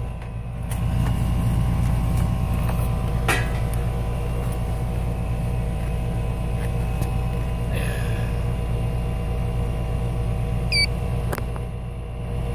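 Trane 3-ton R-410A outdoor air-conditioning condensing unit running steadily under load, its compressor and condenser fan giving a constant low hum.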